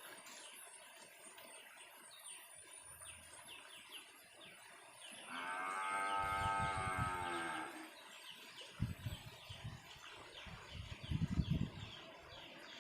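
A cow mooing once, a long, even call lasting about two and a half seconds in the middle, over a background of repeated short high chirps.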